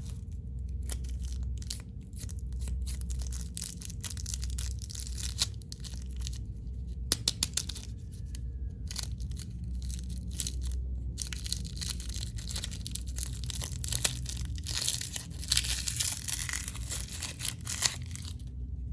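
Candy and chocolate wrappers being crinkled and torn open close to the microphone: a run of sharp crackles that grows denser and louder from about eleven seconds in, stopping just before the end.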